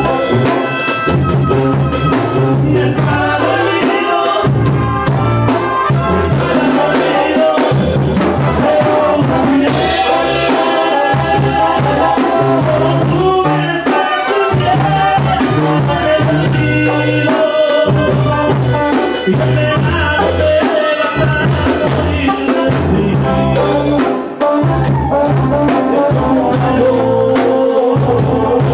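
Banda sinaloense brass band playing live: trumpets and trombones carry the tune over a loud, pulsing tuba bass line and drums, with the tuba right beside the microphone.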